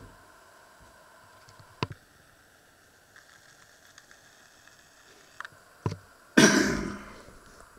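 Handling noises: a few faint clicks, then one loud, brief rustling clatter about six seconds in that fades out over about a second.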